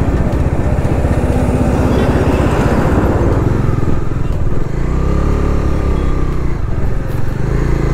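Motorcycle engine running while under way, with a dense low rumble of wind on the microphone. The level dips briefly about halfway through, and the engine note then stands out more clearly as the bike pulls on.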